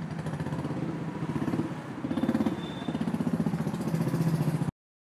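Motorcycle engine idling with a fast, even pulsing beat; the sound cuts off abruptly near the end.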